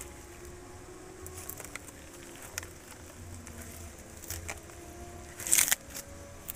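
Bunches of fresh parsley and chive stems rustling and crackling in the hands as they are gathered for tying, with a louder crunching burst a little after five seconds in. A faint low hum runs underneath.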